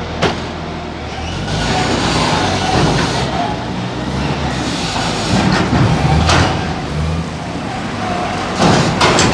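Linde reach stacker's diesel engine running, rising and falling in level a few times as the boom works, with a sharp knock about a quarter second in and more short knocks around the middle and near the end.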